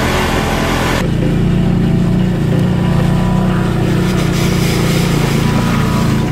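Off-road ATV engine running steadily. For about the first second it is mixed with a rush of tyre, gravel and wind noise, which cuts off suddenly and leaves a clearer, even engine drone.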